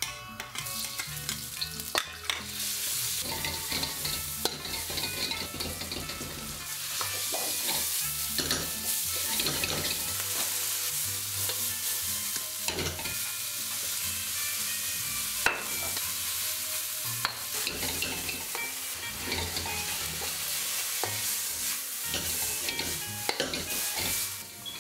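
Minced beef, garlic, chilli and snake beans sizzling hard in a wok over a gas flame on maximum heat, with a metal ladle scraping and clacking against the wok as it is stir-fried; sharp knocks of the ladle stand out every few seconds over the steady hiss.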